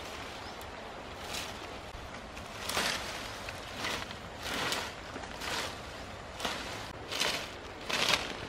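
Leafy branches and vines rustling and swishing in repeated short bursts as they are pulled and stripped from a bush by hand.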